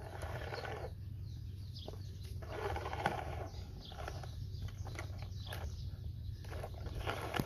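Plastic toy excavator pushed by hand over loose dirt, its tracks scraping and crunching in spells, with short chirping calls in the background.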